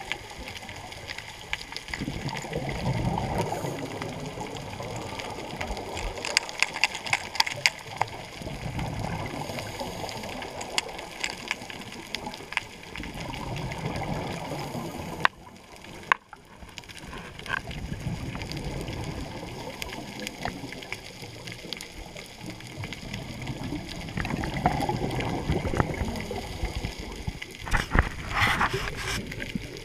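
Scuba regulator exhaust bubbles heard underwater, coming in swells every few seconds with each breath out. Scattered sharp clicks and knocks come from the camera housing being handled.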